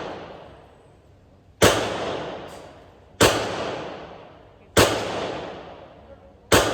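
Four gunshots, evenly spaced about a second and a half apart, each echoing and fading away over about a second.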